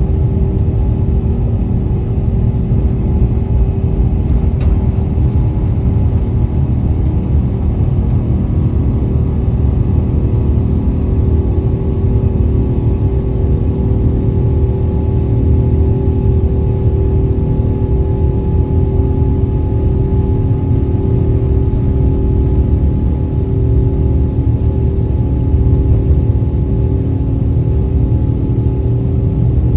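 Airbus A350's Rolls-Royce Trent XWB turbofan engines at take-off power, heard from inside the cabin: a loud, steady low rumble with a constant hum over it.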